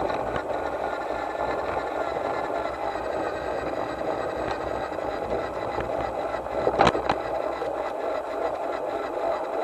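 Garden-railway model locomotive running along the track, a steady mechanical running noise of its drive and wheels on the rails, with one sharp click about seven seconds in.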